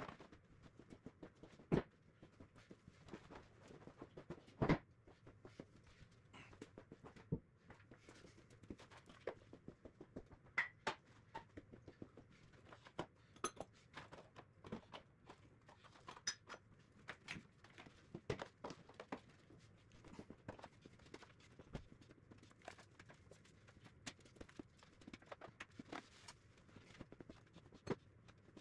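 Scattered knocks, bumps and scrapes of furniture (armchairs and a small fridge) being shifted and carried about on a concrete workshop floor, with two sharper knocks in the first five seconds.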